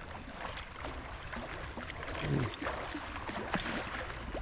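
Shallow river riffle running over stones, a steady rushing, with scattered small clicks and one brief low sound about two seconds in.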